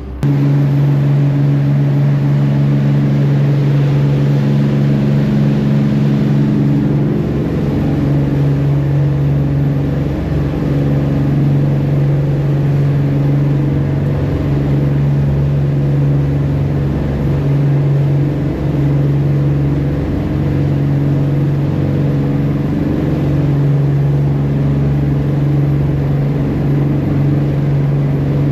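Jet-drive fishing boat's engines running steadily at speed under a haze of wind and water noise, starting abruptly about a quarter second in.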